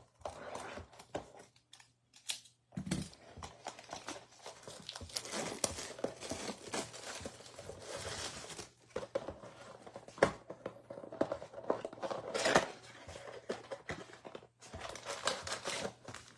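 Crinkling and tearing of plastic shrink wrap being stripped off a cardboard trading-card box, in irregular rustles and crackles. Near the end the cardboard flaps are pulled open and the packs inside are handled.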